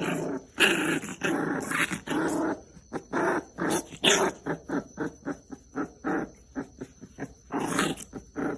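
A dog growling in a string of short bursts, the early ones longer, then quicker and shorter at about three a second.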